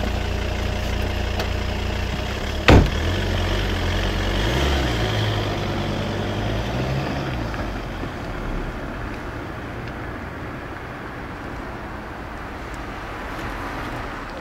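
A car door shuts with a single loud thud about three seconds in over the car's idling engine; the engine then revs up twice as the car pulls away, and its sound fades steadily as it drives off into the distance.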